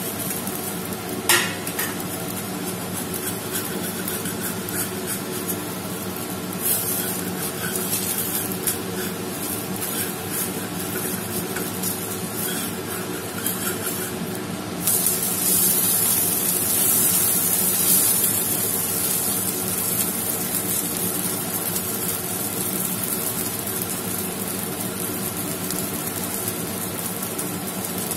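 Ragi dosa sizzling on a hot iron tawa while a metal spatula scrapes and clicks against the pan, over a steady hum. About fifteen seconds in the dosa is flipped, and the sizzle jumps to a louder hiss.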